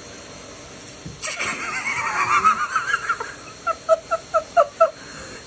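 High-pitched, wavering giggling from a person, then a quick run of six short "ha" bursts of laughter.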